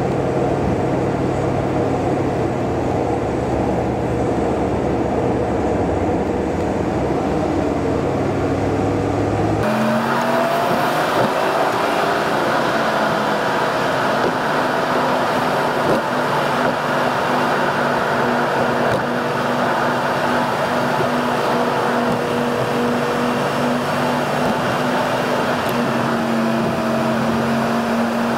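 Engine and road noise inside a moving car, steady throughout, with an abrupt change in tone about ten seconds in.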